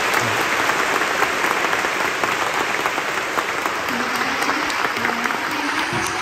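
A large audience applauding steadily, a dense patter of many hands clapping at once.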